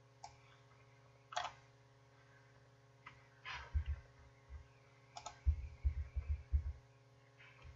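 A few scattered computer mouse clicks, one of them doubled, with soft low thuds and a faint steady hum underneath.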